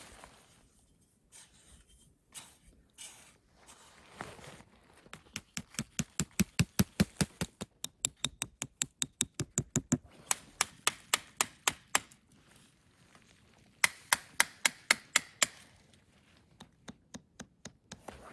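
A small hatchet hammering a stake for a tarp guy line into the ground: quick, even taps at about four a second in two long runs with a short pause between, then a few lighter taps near the end.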